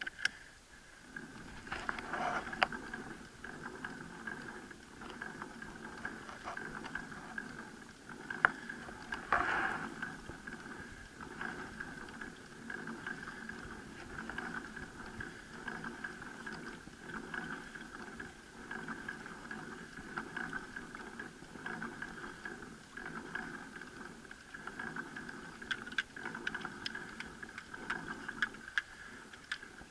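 Chain-and-sprocket pedal drive of a human-powered boat running as it is pedaled, a steady whir with scattered rattles and clicks, starting about a second in and stopping shortly before the end. A few louder knocks come near the start and around a third of the way in.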